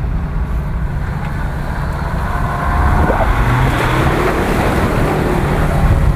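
Jeep Grand Cherokee's engine revving as it drives through deep mud, its spinning tyres throwing up mud. It gets louder about halfway through as the Jeep passes close by.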